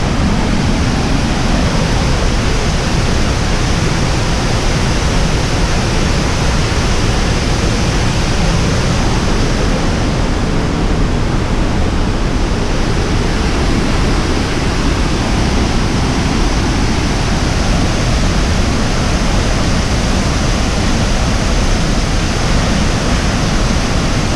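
Waterfall: water falling in a loud, steady rush of noise.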